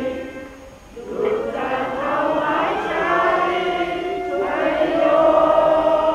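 A group of voices singing slowly in long held notes, like a choir or a crowd chanting together. It fades briefly about half a second in, then comes back.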